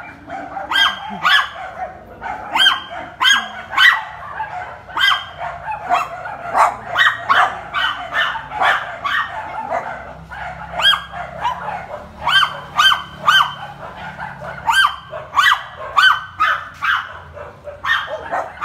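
A dog barking over and over, sharp high barks about two a second with a few brief pauses.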